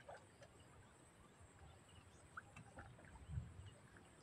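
Near silence, with faint sloshing of shallow floodwater as a person wades and reaches into it, and one soft low thump a little over three seconds in.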